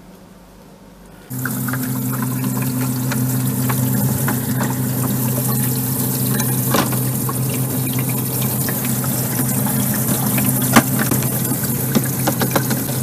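Brema ice maker running: its water pump hums steadily while water sprays and splashes inside the freezing chamber. It starts suddenly about a second in, with light clicks of the plastic curtain being handled.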